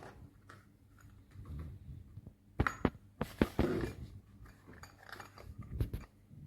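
Handling noises: scattered clicks and knocks, with a short rustling scrape about three seconds in.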